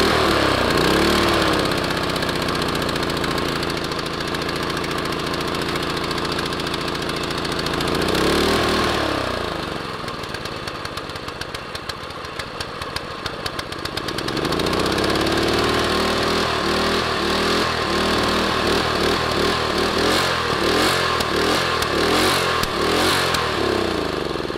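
Predator 212cc single-cylinder four-stroke engine on a long-tail mud motor, running just after being pull-started with the choke on. It drops from high speed to a steady idle, is revved up and back down about eight seconds in, runs slower and less evenly for a few seconds, then is revved up again about fifteen seconds in and held at a higher, wavering speed before easing off near the end.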